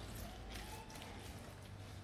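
Faint wet squishing of hands rubbing ginger-garlic paste into a raw leg of meat, over a low steady room hum.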